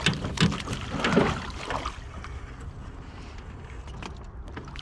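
Scattered knocks and splashy water noise in the first couple of seconds as a hooked rainbow trout is brought to the landing net, then a steady low rumble of wind and water.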